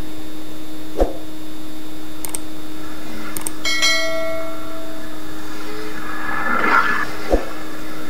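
Subscribe-button sound effect: two mouse clicks, then a notification-bell ding that rings and fades over about a second. Underneath, a steady hum and hiss, with a single dull knock about a second in and another near the end.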